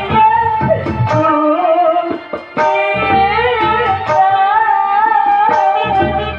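Jatra stage song: a high, ornamented sung melody with a wavering voice, accompanied by tabla strokes.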